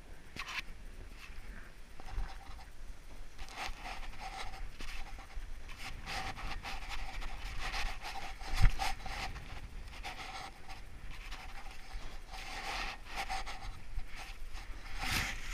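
Rustling and scraping of jacket fabric and snow against a body-worn action camera moving over snow, in irregular bursts, with one sharp knock about eight and a half seconds in.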